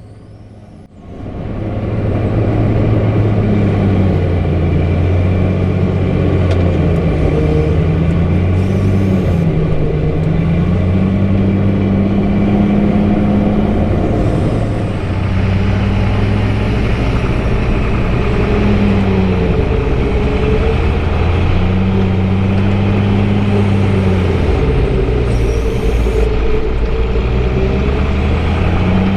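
Heavy diesel-powered tub grinder running under load as it grinds hay bales, starting about a second in. The engine's pitch rises and falls as the load changes.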